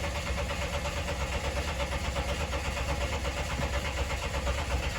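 2012 Dodge Ram 1500's 3.7-litre V6 cranking over on the starter without catching: a strong, steady crank with an even rhythm. This is the truck's crank-no-start fault; the even cadence suggests no timing or compression problem.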